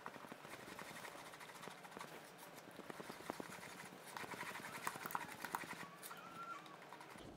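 Spatula stirring eggs, sugar and yogurt in a plastic mixing bowl: faint wet scraping with many small irregular clicks, mixing the batter until the sugar dissolves.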